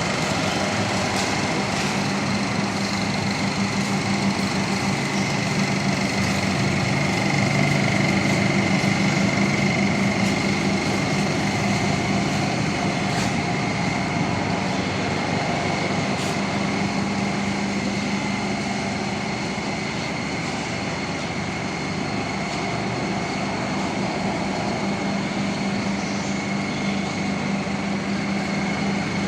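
Engine of a just-repaired Jeep A2 running steadily with an even, continuous drone, swelling slightly in loudness about a third of the way through.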